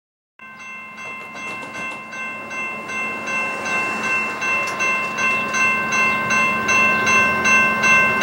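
Railroad bell ringing in a steady rapid rhythm, about two and a half strikes a second, growing louder.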